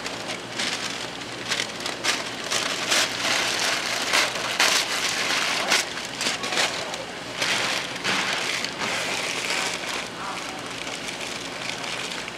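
Recycled packing paper crumpled and wadded by hand around a bake element's connectors and stuffed into a cardboard box: a dense run of crackles and rustles, busiest in the middle.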